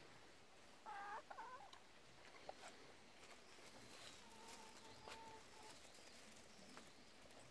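A hen clucking faintly, with a few short clucks about a second in and a soft drawn-out note a few seconds later.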